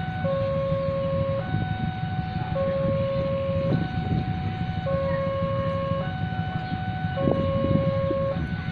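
Two-tone warning alarm, most likely a railway level-crossing signal, switching between a low and a higher tone about every second, over a steady low rumble of engines and traffic.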